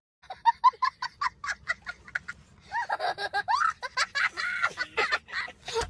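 A young child laughing hard: a quick run of short high-pitched giggles, then longer squeals of laughter that rise and fall.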